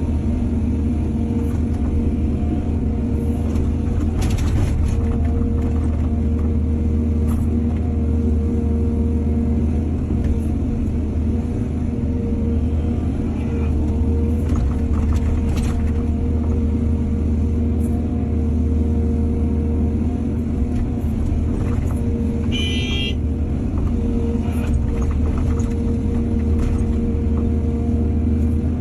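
Excavator's diesel engine running steadily under load, a low, even hum, with scattered knocks and clanks from the working machinery. A brief high-pitched squeal comes late on.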